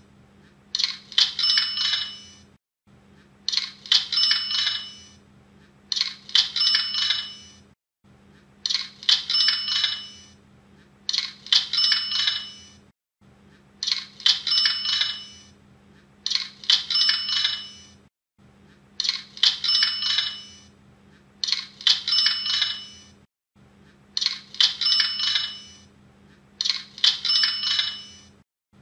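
Cash-register 'ka-ching' sound effect, a bell ring over a jingle of coins, repeated in a loop about every two and a half seconds. It is the sale notification sound used by Hotmart.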